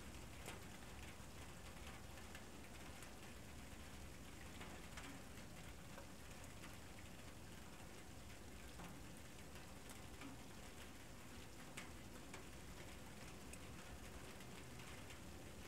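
Faint steady hiss with many small, scattered ticks and clicks and no voices or pitched sounds.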